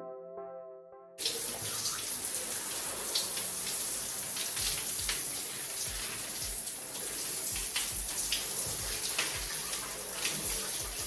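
Shower running: a steady spray of water that starts suddenly about a second in, with a few soft knocks through it, after a few notes of music.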